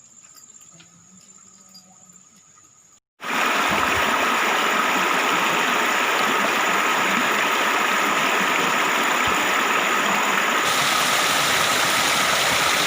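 Quiet outdoor background for about three seconds, then an abrupt cut to the loud, steady rush of a flowing stream.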